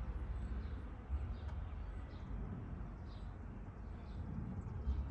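Outdoor background with a low steady rumble and a bird chirping faintly over and over; a light knock about a second in and another near the end.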